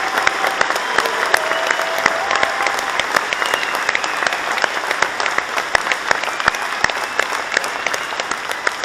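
Audience applause: many people clapping together in a dense, steady patter that eases slightly toward the end.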